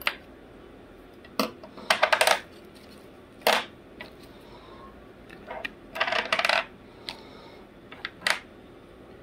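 Small scope adapter rings being handled and set down on a wooden table: a scattered series of sharp clicks and short clattering rattles, some in quick bunches.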